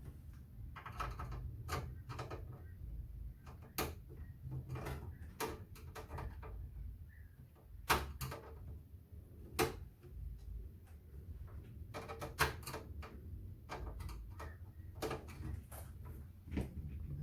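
Scattered, irregular clicks and knocks of a Compaq Portable computer's case being handled and taken apart, over a steady low hum.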